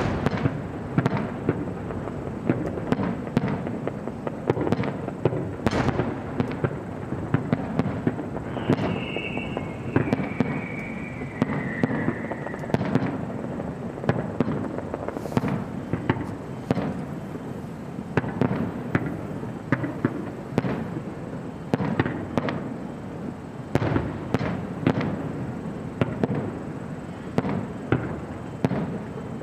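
A fireworks display going off in rapid succession: many sharp bangs over steady crackling. About a third of the way in, a whistle falls in pitch over a few seconds.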